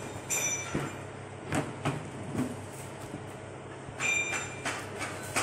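Plastic stretch wrap being pulled off its roll and wound around a cardboard box: crackling, short squeaks and scattered knocks and rustles, over a steady low hum.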